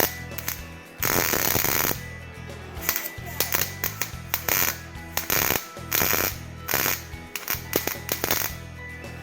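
Welding arc crackling in on-off bursts as a beginner lays weld into the middle of a nut: one burst of about a second near the start, then a run of shorter stop-start bursts. Background music plays underneath.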